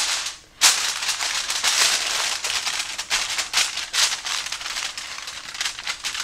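Reynolds Wrap non-stick aluminium foil crinkling as a sheet is laid over a glass baking dish and pressed and crimped around its rim by hand. A sharp crackle comes about half a second in, then uneven crinkling that thins out toward the end.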